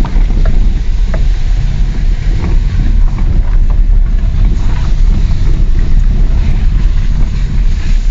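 Lada Vesta driving over a bumpy, potholed road, heard from inside the cabin with a window open: a steady low rumble of tyres, suspension and wind, with a few light knocks, the knock the owner traces to the steering rack.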